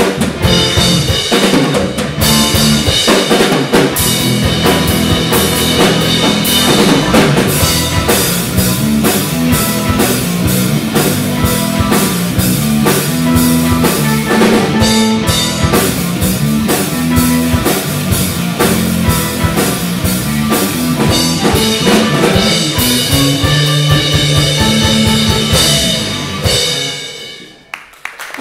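Live rock band playing loud and driving: drum kit, electric bass with an overdriven tone, electric guitar and keyboard. Near the end the song stops and the sound dies away.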